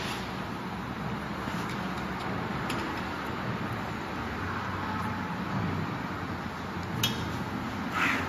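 Metal fittings on a desktop flatbed screen printer's frame clicking and knocking faintly as they are adjusted by hand, over a steady background hum, with one sharper click about seven seconds in.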